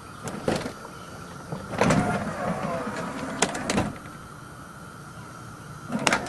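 Electric motor and mechanism of a custom power car door that retracts down into the sill as it opens: a few clicks, a louder whirring with a falling whine about two seconds in, clunks just before four seconds, then a quieter hum and a click near the end.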